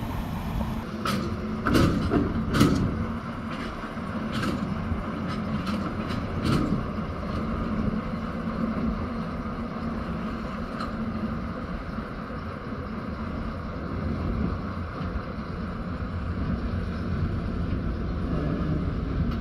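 Sentinel 0-6-0 diesel shunting locomotive running as it moves off hauling wagons, a steady engine sound, with several sharp knocks in the first seven seconds or so.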